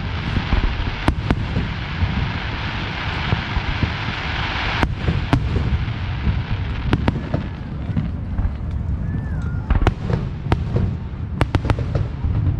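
Fireworks display going off: a dense crackling hiss for about the first five seconds that cuts off suddenly, then a string of sharp bangs and pops, over a constant low rumble of distant booms.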